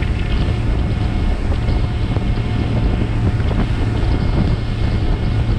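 Boat running at cruising speed: a steady low engine drone under a rush of wind on the microphone and water churning in the wake.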